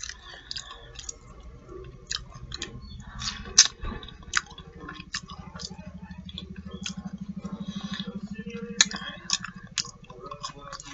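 Close-up mouth sounds of a person chewing fried fish nuggets and fries, with wet smacking and crunchy clicks. A low steady hum rises under the chewing from about four seconds in and fades near the end.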